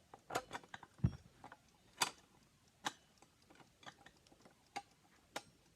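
Scattered clicks and taps of a plastic alarm clock's parts being handled and pried apart, with a duller knock about a second in.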